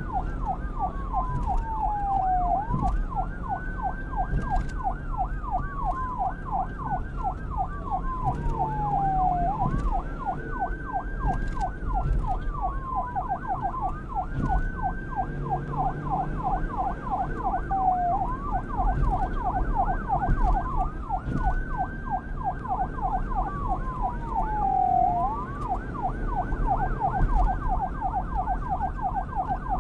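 Police car siren cycling between a slow wail that rises and falls and a fast, rapid yelp, the pattern repeating about every seven seconds over a low rumble.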